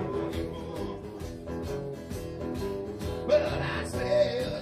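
Live blues band music with electric guitar, a bluesy rock arrangement; a held, bending note rises over it about three seconds in.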